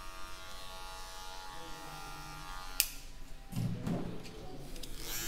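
Electric hair clipper running with a steady buzzing hum as it works over a comb on a fade. About three seconds in it stops abruptly with a sharp click, and it starts humming again at the very end.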